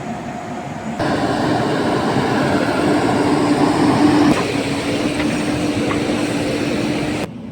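A JCB backhoe's diesel engine running steadily with a low, even hum and heavy mechanical noise. It comes in abruptly about a second in and cuts off just before the end.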